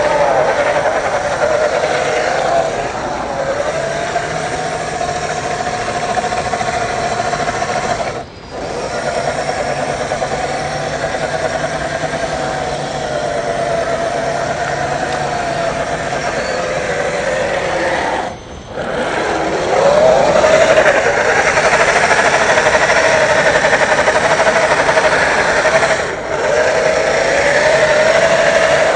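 Electric motor and gear drivetrain of an Axial SCX10 III RC crawler whining steadily under throttle, its pitch wavering up and down. The whine drops out briefly three times.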